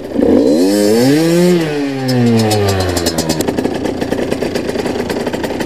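Enduro motorcycle engine revved once, its pitch rising for about a second and a half and then falling away, then running unevenly at low revs.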